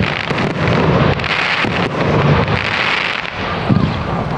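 Fireworks display going off: a dense run of bangs and crackling, with the crackle strongest through the middle.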